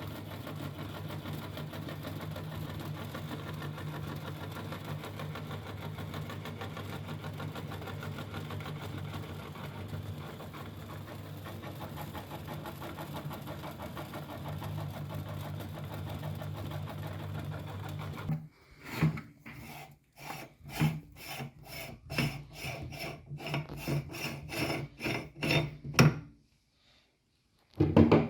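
Electric meat grinder running steadily with a rasping, scraping sound as it grinds soap. It stops about eighteen seconds in, followed by a run of short, irregular knocks and scrapes.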